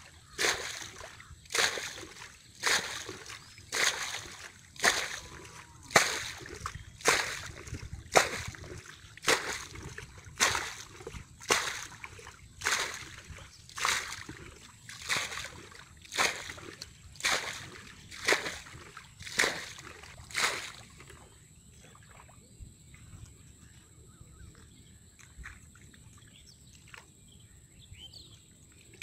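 Muddy water scooped with a plastic bucket and thrown out of a small flooded paddy pen, a splash about once a second in a steady rhythm. The bailing stops about twenty seconds in, leaving only faint high steady tones.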